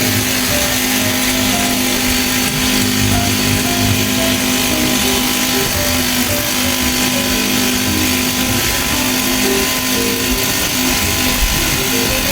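Small engine running steadily at an even speed, with a constant hum and a dense hiss.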